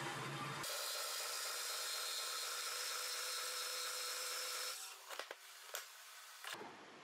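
Band saw running with its blade rubbing on a block of annealed nitinol without cutting through it: the metal is too tough for the blade. The saw stops suddenly about two-thirds of the way through, followed by a few light metallic clicks.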